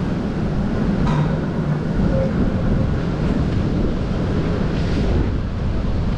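Wind buffeting the camera microphone: a loud, uneven low rumble that gusts up and down throughout.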